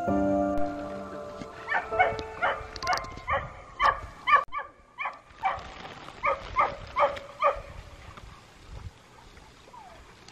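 Hunting dog barking in a quick run of short barks, about three a second, stopping about seven seconds in.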